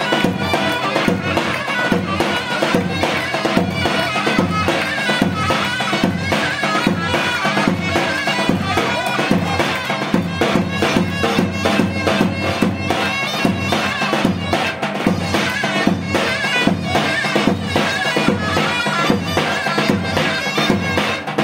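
Traditional Turkish folk dance music played on a loud, shrill reed wind instrument, with many fast ornamented notes over a steady drum beat.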